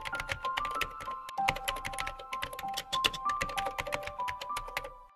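Rapid keyboard typing clicks played as a text-typing sound effect, over background music with held notes; the typing and music fade out near the end.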